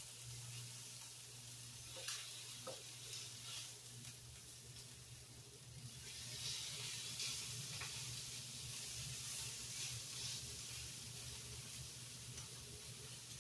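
Chicken breasts sizzling on a countertop grill, with a few light clicks of metal tongs as the pieces are turned over.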